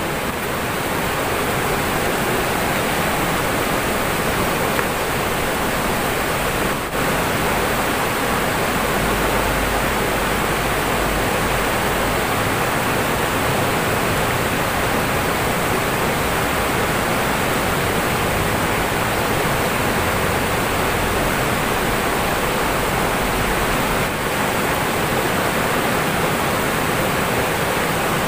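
Fast river water rushing over rocks in rapids: a steady, even rushing.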